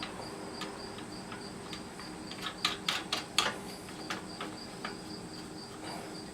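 Crickets chirping in a steady, rapid pulse. A handful of sharp clicks and knocks come between about two and a half and three and a half seconds in, from handling the parts of the saw stand.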